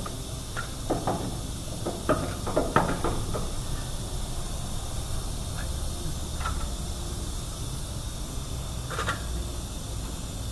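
Light metal clinks and knocks from a wheel-hub backing plate being lined up and fitted onto the spindle, a quick cluster in the first few seconds and a couple more later, over a steady low hum.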